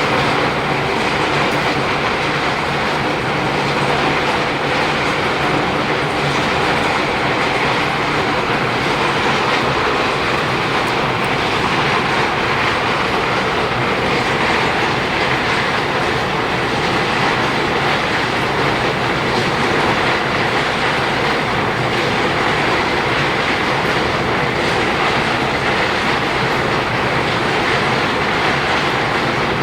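Ore grinding mill of a small gold processing plant running, a loud, steady rattling din that does not let up.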